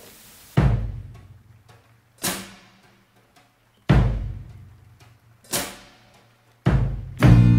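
Slow drum-kit intro: a bass drum and a snare alternate about a second and a half apart, each hit ringing out. Two quicker hits near the end bring in the full band.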